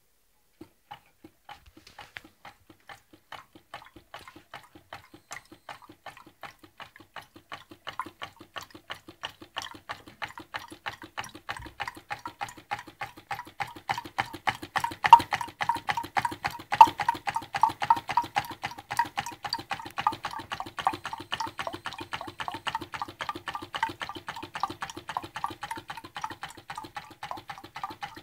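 Homemade tin-can Stirling engine driving a water pump, knocking in a regular beat. It starts slowly, speeds up to several beats a second over the first half as it gets going, and is loudest in the middle.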